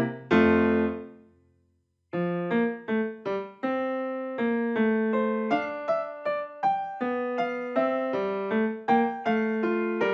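Background piano music: a chord rings out and fades to silence, then a light, steady piano melody picks up again about two seconds in.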